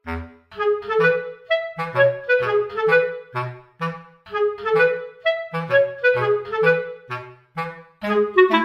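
Background music: a light, bouncy tune of short, detached woodwind-like notes over a low bass line keeping a steady beat.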